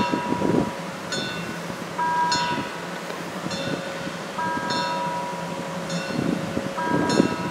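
Level-crossing warning bell ringing in even strokes about once a second as the narrow-gauge steam train approaches. Wind buffets the microphone at the start, and the train's low rumble grows near the end.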